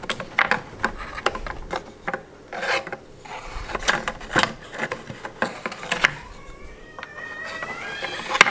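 Number blocks of a snowman Christmas countdown calendar being turned by hand: irregular scraping and clacking as the blocks rub and knock against each other, with a sharp click near the end.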